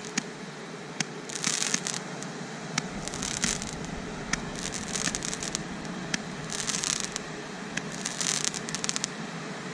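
10-shot Roman candles firing, each shot a sharp pop followed by a short hissing burst, about every one and a half to two seconds, with a steady fizz between shots.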